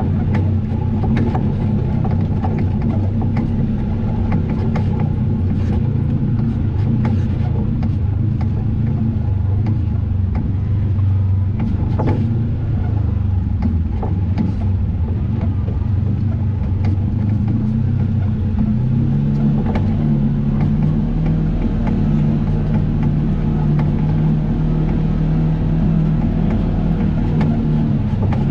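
Off-road vehicle engine running steadily while driving, with scattered knocks and rattles. The engine note steps up in pitch about two thirds of the way through.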